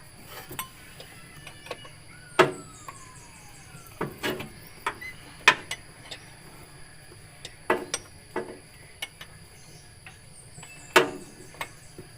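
Irregular metallic clicks and knocks of tools and parts being handled, about a dozen spread unevenly, with the engine not running.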